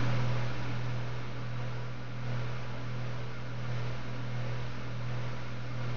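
Gas torch flame burning steadily into a crucible: a constant rushing hiss with a low hum beneath it.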